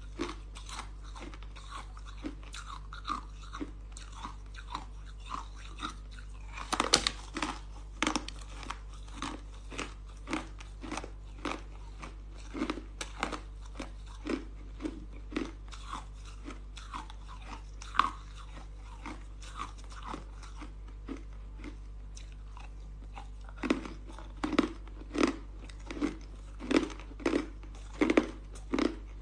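Close-up chewing and crunching of a chunk of soft, frosty ice, with short crisp crunches about once or twice a second. A louder bite comes about seven seconds in, and the crunches grow louder and closer together over the last few seconds.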